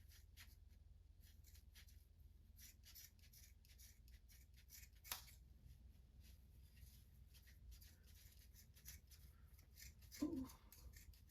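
Scissors snipping through braided hair: a run of faint, crisp snips spread irregularly, with one louder snip about five seconds in.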